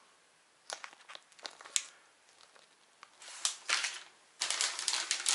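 Plastic zip-lock packets of soft-plastic fishing lures crinkling as they are handled: scattered crackles and clicks at first, then a dense stretch of crinkling near the end.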